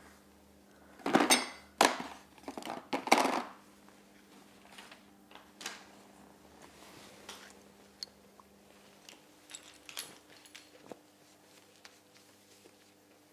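Metal monitor-arm and VESA adapter parts and hardware clinking and rattling as they are handled: a loud flurry of rattles in the first few seconds, then scattered light clicks.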